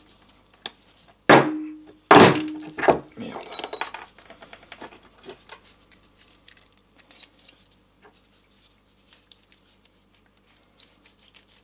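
Metal transaxle parts clinking and knocking as they are fitted by hand: three sharp metal knocks in the first three seconds, the first with a short ring, then faint small clicks of parts being handled.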